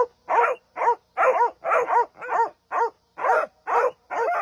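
Dog barking in a quick, even run of short yelping barks, about two or three a second, each bark rising and falling in pitch.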